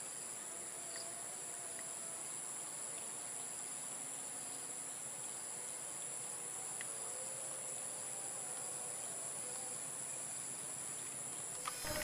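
Steady insect chorus: two even, high shrill tones held over a faint hiss, with no clear train noise. A louder sound cuts in suddenly right at the end.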